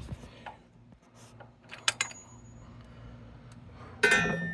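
Small metal clinks of hand tools or parts being handled: two sharp clicks with a brief high ring about halfway, then a louder ringing metal clatter near the end.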